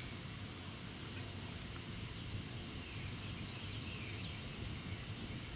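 Outdoor ambience: a steady low rumble, with faint, brief high bird chirps a few times.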